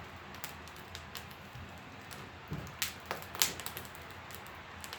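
Wood fire crackling in a wood stove: a low steady rush with irregular sharp pops and ticks, the loudest pop about three and a half seconds in.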